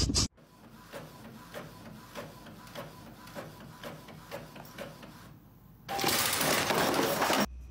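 Epson printer running a print job, ticking about three times a second with a faint steady whine as the paper feeds. About six seconds in, a loud burst of noise lasts about a second and a half.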